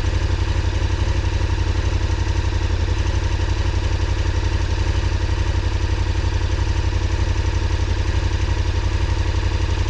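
KTM 1290 Super Adventure R's V-twin engine idling steadily, an even low pulsing with no revving.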